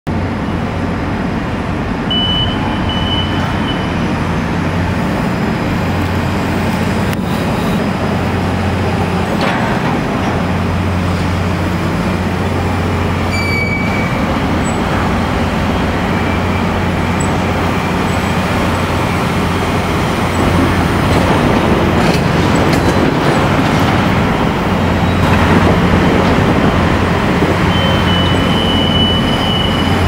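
Steady working noise of heavy port machinery, a low engine hum under a general rumble, growing a little louder after about twenty seconds. A short high steady tone sounds briefly near the start and again near the end.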